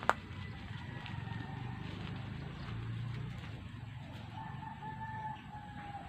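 A rooster crowing twice: two long held calls, the second falling slightly at its end. A single sharp click right at the start is the loudest sound.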